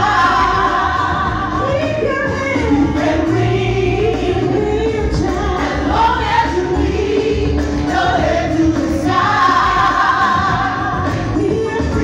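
Gospel choir singing live, a female lead voice out front with the choir's voices behind her, over a steady low bass.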